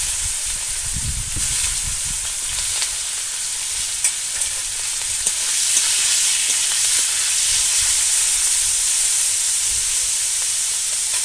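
Parboiled cauliflower florets sizzling steadily as they fry in hot oil in a kadai, stirred with a spatula, with a few sharp clicks partway through.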